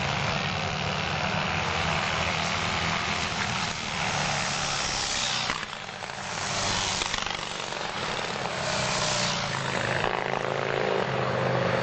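Antique racing motorcycle engines running on open exhausts, their note swelling three times as bikes go by.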